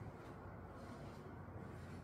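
Quiet room tone with a faint low hum and no distinct events.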